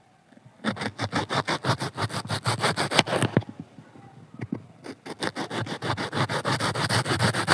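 Kitchen knife sawing back and forth through a raw potato, a rapid run of scraping strokes, about seven or eight a second. The strokes stop for about a second midway, then start again.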